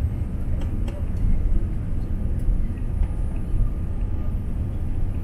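Steady low rumble of cabin noise inside a Boeing 787-9 airliner on approach, with a couple of faint clicks about a second in.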